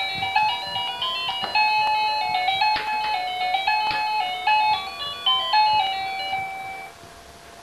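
Electronic toy melody, a simple beeping tune playing from a baby's stacking-ring toy, which stops shortly before the end. A few plastic clicks as rings are set on the toy's pole.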